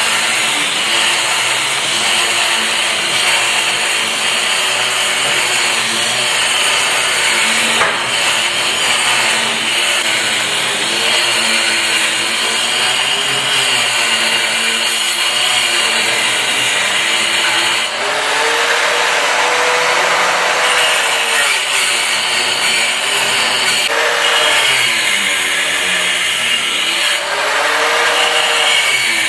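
Handheld angle grinder cutting grooves into a plastered masonry wall, chasing channels to hide electrical wiring. It runs loud without a break, and its pitch sags and climbs back again and again as the disc bites into the wall and eases off.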